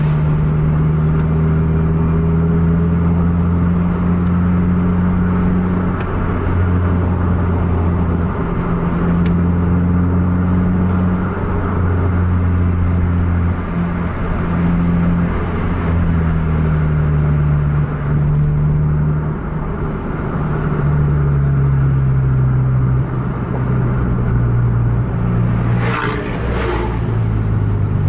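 Car engine droning under load with tyre and road noise, heard inside the cabin; the engine pitch steps up and down a few times as the speed changes. A brief louder sound comes through near the end.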